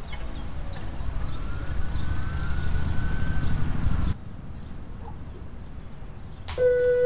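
A siren wailing slowly up and down over a low rumble, cut off abruptly about four seconds in. Near the end a steady synthesizer chord starts.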